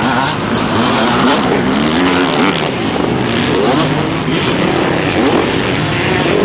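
A pack of off-road motorcycles running together, many engines overlapping as they rev up and down and accelerate, so the pitch keeps rising and falling.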